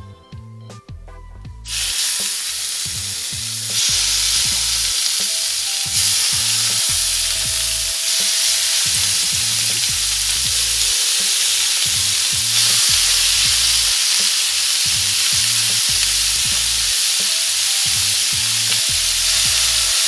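Diced raw meat sizzling on a hot, oiled flat-top griddle. The sizzle starts suddenly about two seconds in and gets louder in steps as more pieces go on, then holds steady.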